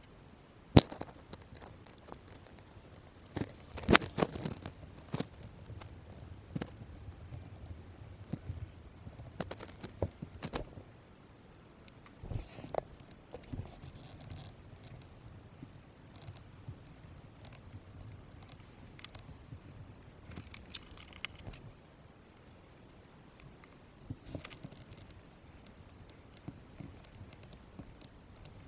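Irregular clicks, knocks and light scrapes of tools and small parts being handled, loudest in a cluster about four seconds in and sparser and fainter after about twelve seconds.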